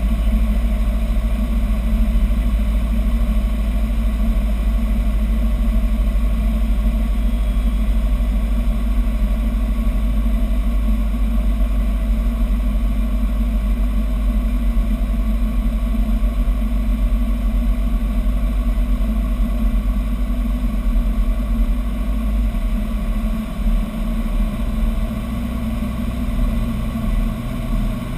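Robin DR400 light aircraft's piston engine and propeller droning steadily, heard inside the cockpit on final approach. About three-quarters of the way through, the low part of the drone shifts and the level becomes slightly uneven.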